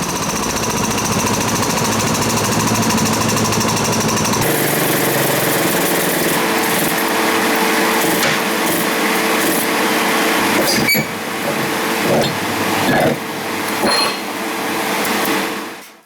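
Power tools working on a car's damaged body panels. One steady tool noise gives way to another about four and a half seconds in, with a few sharp knocks near the end.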